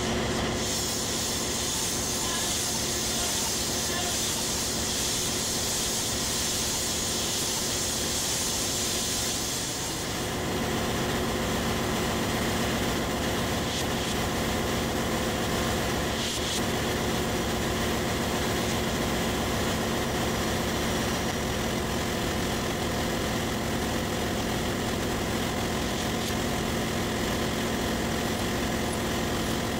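Steady drone of running machinery in a ship's engine room, with a high hiss that drops away about a third of the way through. A single knock a little past halfway.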